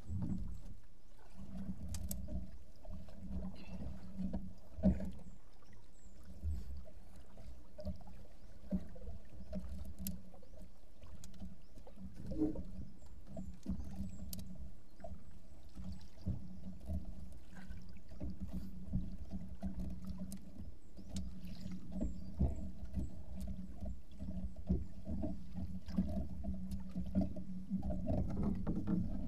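Small boat engine running steadily at low speed, a steady hum, with scattered light knocks and clicks from the longline being handled over the side.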